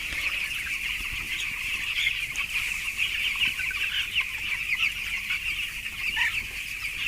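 A flock of 13-day-old broiler chicks peeping together: a dense, continuous chorus of many high chirps.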